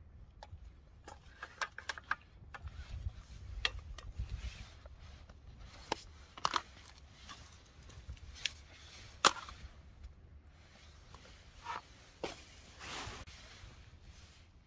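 Small camp coffee-making gear being handled and set down: scattered light clicks, taps and knocks, the sharpest about nine seconds in, with a short rustle near the end.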